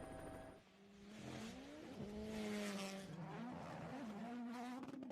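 WRC rally car engine at high revs, starting about half a second in; its pitch climbs, drops sharply and climbs again as the driver changes gear and lifts.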